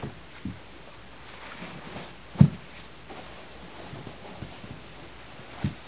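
Heavy canvas being folded and pulled around a loaf of wet clay on a canvas-covered wedging table: soft handling and rustling, with a few small knocks and one sharp thump about two and a half seconds in.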